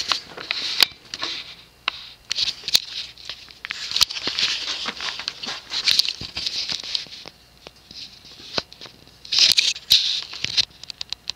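Vintage GGC Tropic-Aire ceiling fan with a Fasco motor running on low speed, with uneven hissing rushes of air and scattered light clicks.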